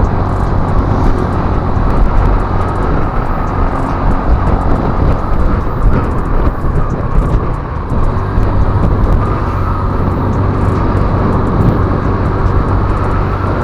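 Honda Click 125i scooter under way, its single-cylinder engine running steadily under wind rush on the microphone.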